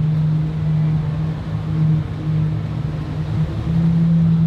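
Twin outboard motors idling with a steady low hum, a little louder about three and a half seconds in.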